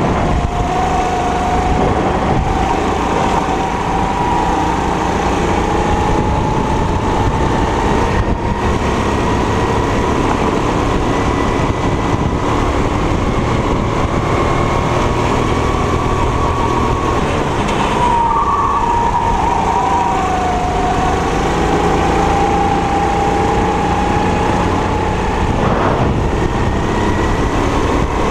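270 cc four-stroke kart engine running hard through a lap, heard from the driver's seat. Its note drops as it slows for corners, about half a second in and again around eighteen seconds, and climbs slowly back up along the straights.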